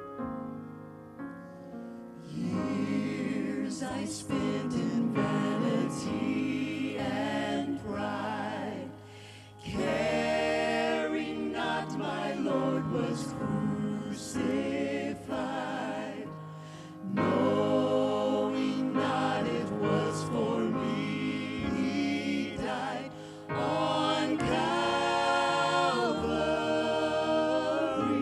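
A small group of singers singing a gospel-style worship song together over piano accompaniment. The voices come in about two seconds in, after a soft piano passage.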